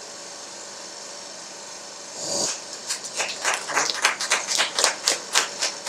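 A steady hiss, then about two seconds in a louder burst of hiss followed by regular short hissing puffs, roughly three a second, in an even rhythm.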